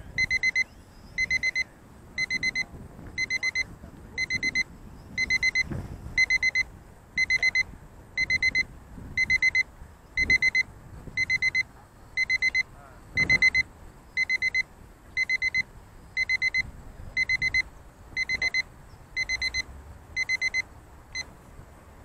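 Electronic alarm beeper sounding a high, trilled beep in short bursts, a little more than once a second, which stops near the end. Wind buffets the microphone now and then underneath.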